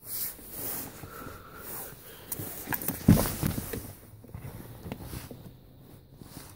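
Handling noise from a hand-held recording device, with rustling and fumbling and irregular clicks as an OBD2 code reader and its cable are handled in a car. There is a sharp knock about three seconds in.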